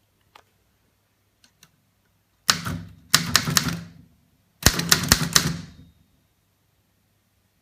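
1921 Underwood Standard No. 5 typewriter: a few light clicks, then two quick runs of loud, rapid typebar strikes about two seconds apart.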